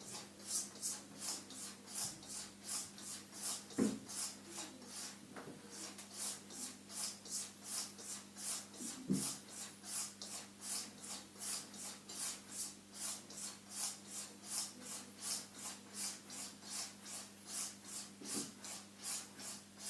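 A straight razor being stropped on a leather strop: quiet, even swishing strokes, about three a second, with a few soft knocks.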